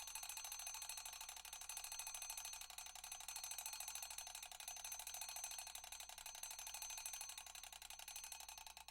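Mechanical clock's bell ringing: its hammer strikes the bell in a very fast, even rattle over a steady ringing tone. The strikes grow weaker and sparser near the end as the ring runs down.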